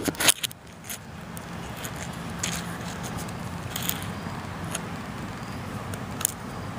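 Camera handling noise: a quick cluster of sharp knocks and scrapes as the camera is moved and set down, then a steady outdoor background hiss with a few faint ticks.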